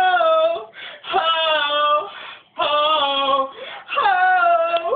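A single unaccompanied voice sings four long held notes, each sliding down in pitch, with short breaths between them; the singing is tone-deaf.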